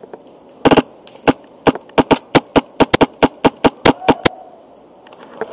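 Airsoft rifle with a Wolverine Inferno Gen 2 HPA engine, fired close by in a rapid string of shots. A tight burst comes about half a second in, then about fifteen more sharp pops in quick, uneven succession, stopping a little after the four-second mark.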